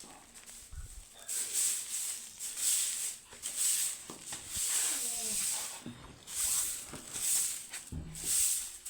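Broom sweeping a floor: repeated swishing strokes, about one a second.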